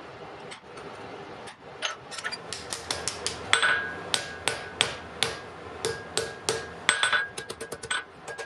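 Blacksmith's hand hammer striking a red-hot iron bar on an anvil. From about two seconds in it lands a quick run of blows, about three a second, many of them followed by a short metallic ring.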